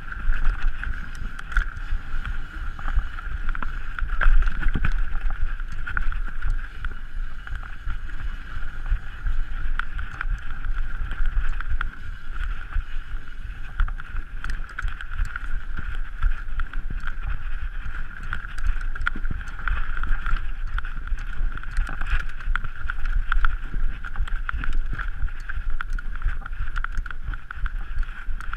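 Mountain bike ridden down a dirt trail: wind on the microphone, tyre rumble, and the bike rattling with many small knocks over rough ground. A steady high buzz runs under it.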